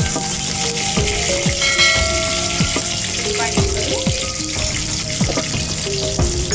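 Hot oil sizzling and spitting in a kadai as curry leaves fry in a tempering of mustard seeds, dals and green chillies, with a steel spoon stirring; sliced onions go into the oil near the end.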